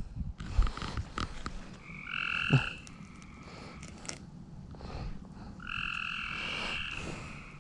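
A frog calling with two trills, a short one about two seconds in and a longer one near the end, over faint scattered clicks and rustles.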